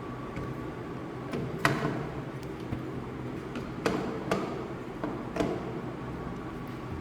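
A few sharp knocks and clicks, the loudest about two seconds in and three more spread over the next few seconds, as the air circuit breaker is handled. They sit over a steady background hum.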